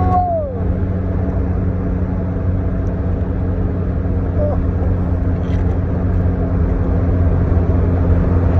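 Steady low drone of a running car heard from inside the cabin, engine hum with road noise. A brief falling voice sound comes right at the start.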